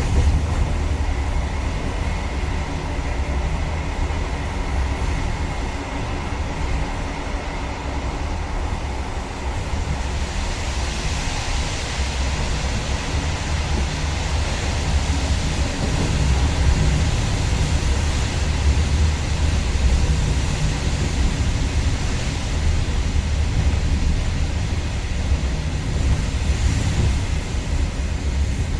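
InterCity train running on the rails: a steady low rumble with a faint hum, joined by a rising hiss of higher noise about ten seconds in.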